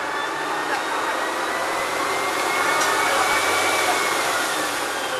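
Rear-mounted bus engine and drivetrain heard from inside the cabin at the engine end: a steady running noise with a high whine that rises, holds, then falls away about four seconds in.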